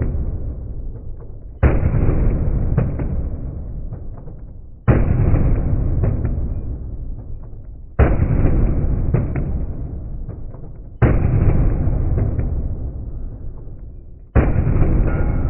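Pistol shots from two handguns held one in each hand, fired in an indoor shooting range. A loud report comes about every three seconds, five in all, each trailing off slowly in the range's echo.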